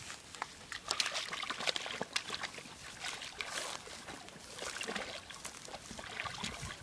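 Bernese mountain dog splashing in shallow river water at the bank, biting at the water, with irregular splashes and trickling drops starting about a second in.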